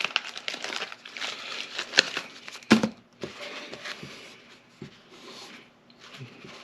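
Crinkly rubbing and rustling of a towel as engine rod parts are wiped clean, with a sharp knock about three seconds in as a part or tool is set down.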